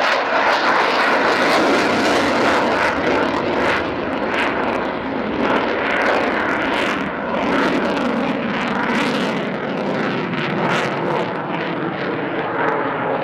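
Eurofighter Typhoon's twin EJ200 jet engines running loud and continuously as the fighter flies its display manoeuvre, a steady roar with a rippling, crackling edge.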